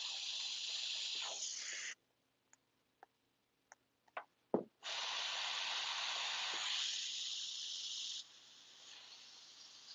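Airbrush spraying paint onto canvas: a steady hiss for about two seconds, a few light clicks, then a longer burst of hiss of about three seconds that drops to a fainter hiss about eight seconds in.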